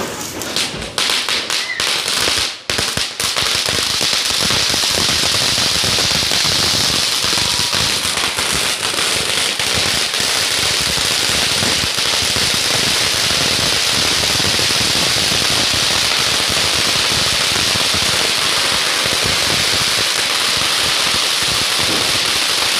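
An anar (flower-pot fountain firework) burning on the ground, a loud steady hiss of spraying sparks. It sputters unevenly for the first few seconds, then settles into a constant hiss.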